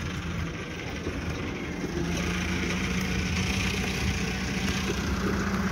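An engine idling steadily: a low, even hum, with a steady tone growing stronger about two seconds in.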